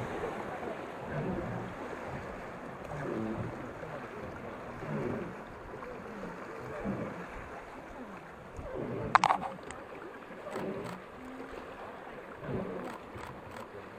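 Rushing white water of river rapids churning around a passenger boat, with low voices of people aboard underneath. A brief sharp, high-pitched sound about nine seconds in, followed by a few light clicks.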